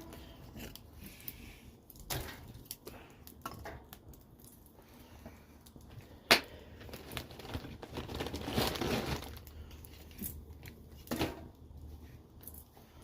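Wood fire crackling, with scattered sharp pops and one loud snap about six seconds in.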